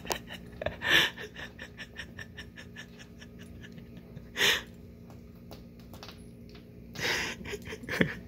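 A cat licking and chewing at catnip: a run of small wet clicks, about four or five a second, broken by three breathy huffs about a second in, midway and near the end.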